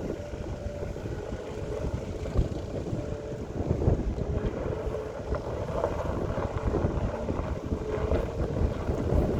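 CAT 262D skid steer's diesel engine running steadily, with wind buffeting the microphone.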